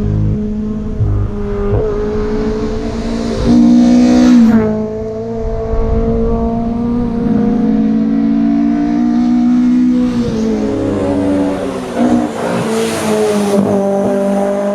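Fiat Abarth 131 Rallye's twin-cam four-cylinder engine at racing speed on a tarmac stage, its note climbing and dropping with throttle and gear changes and loudest about four seconds in. A short hiss, likely from the tyres, comes near the end.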